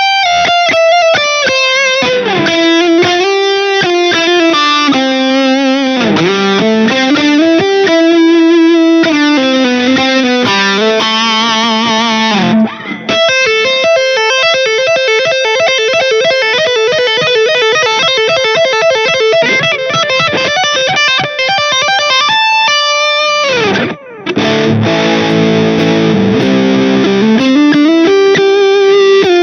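Smiger LG2 Pro electric guitar played through distortion: a lead line with wide string bends and vibrato, then a stretch of fast, even picking, and a steep dive in pitch about three-quarters of the way through.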